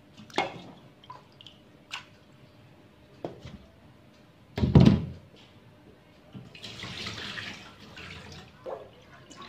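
Water sloshing and a few small knocks of an aluminium pot being handled in a stainless steel sink. About five seconds in, a loud clunk as the pot is set down in the metal sink, followed by a couple of seconds of running water.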